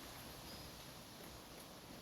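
Faint, steady rush of wind, an even hiss with a few faint ticks.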